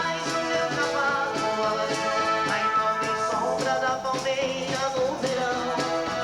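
A dance band playing live: held melody notes over a steady, even drum beat.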